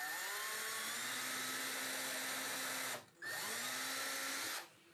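Cordless drill pre-drilling a pilot hole into the end of a wooden 1x2 plank: the motor whines up to speed and runs steadily for about three seconds, stops briefly, then spins up again and runs for about a second and a half.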